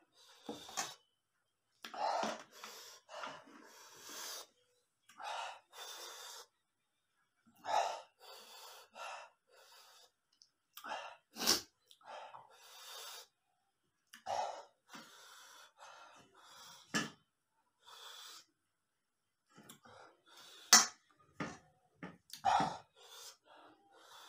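A man breathing hard through his mouth in short, irregular gasps and puffs from the burn of spicy chilli noodles, with a few sharper, louder bursts among them.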